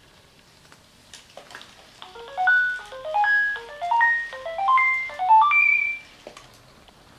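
Sony Aibo ERS-210 robot dog playing its electronic beeping tone melody: five quick runs of notes, each climbing in pitch and each starting higher than the last, ending on a held high note. A few faint clicks come just before the melody.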